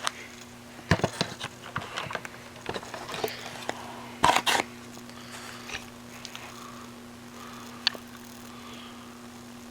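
Scattered clicks, knocks and light rustles of things being handled, loudest as a pair of knocks about four and a half seconds in, over a steady low hum.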